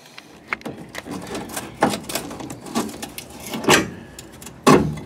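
Scattered light clicks and knocks, a few sharper than the rest, from hands working a snap-in clip out of the bolt hole in a metal bumper bracket.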